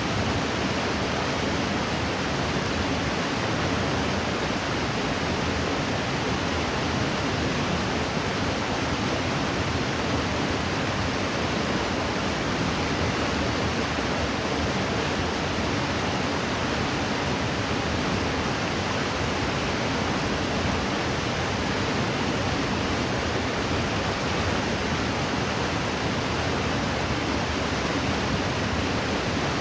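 Steady rushing of river water, an even, unbroken hiss without any distinct splashes or other events.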